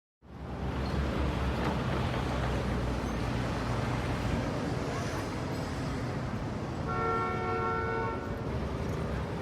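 Car engine running steadily, with a car horn sounding once for about a second near the end.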